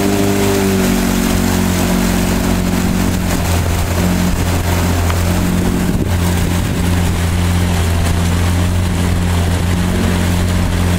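Motorboat engine running steadily, its note stepping down slightly about a second in, over a steady rushing noise.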